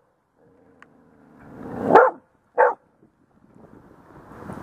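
A dog alert-barking at driftwood logs in the river. Two barks come close together about two seconds in, and the next one is building near the end.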